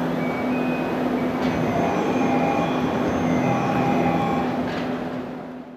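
Tsukuba Express TX-1000 series train standing at the platform while its doors and the platform screen doors close: a steady hum from the stopped train, short beeping tones and a couple of light knocks. The sound fades out at the end.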